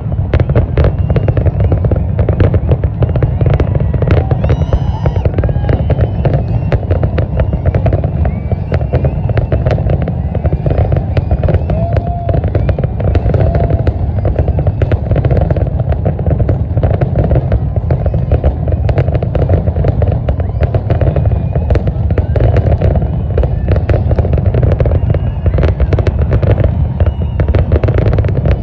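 Fireworks display: a dense, continuous barrage of bangs and crackling bursts over a constant heavy low rumble.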